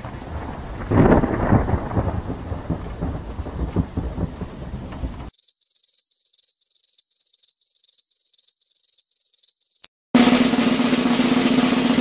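Thunder rumbling over rain, with a loud crack about a second in. After about five seconds it cuts off and a high electronic beeping follows, about three beeps a second. Just after ten seconds, following a brief silence, a different loud noisy sound with a steady low hum begins.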